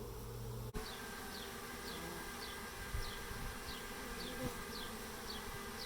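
Honey bees buzzing on a hive frame: a steady, many-voiced hum, with faint short high chirps repeating about twice a second.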